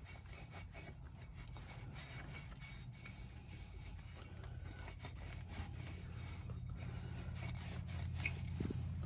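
Faint rubbing and scraping as a UTV primary clutch's spring keeper and its seat are cleaned by hand, over a low steady hum that grows slightly louder near the end.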